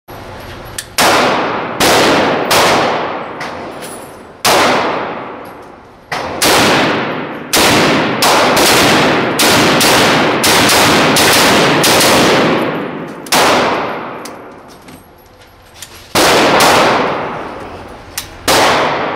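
A Yugoslav 7.62x39mm rifle fitted with a muzzle brake firing about eighteen single shots at an uneven pace, quickening to about two shots a second in the middle. Each shot is followed by a long echo that dies away.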